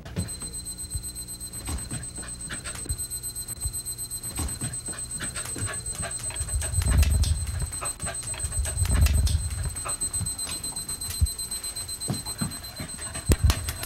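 Kitchen timer alarm sounding a steady, high-pitched electronic tone that a hearing dog is trained to alert to. Scattered clicks and two low thumps in the middle come from the dog moving around.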